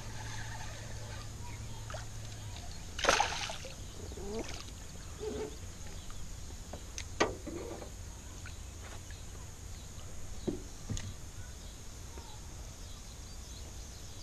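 Small largemouth bass splashing at the surface as it is reeled in beside a jon boat, with one louder splash about three seconds in, then lighter splashes, clicks and knocks as it is lifted aboard.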